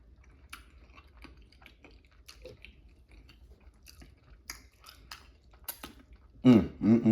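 Close-miked eating and mouth sounds: soft, irregular clicks and smacks of chewing.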